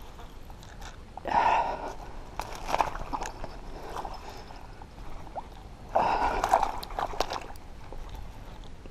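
Large hooked piauçu splashing and thrashing in the water close to the bank during the fight, in two bursts, about a second in and about six seconds in, with scattered light clicks between.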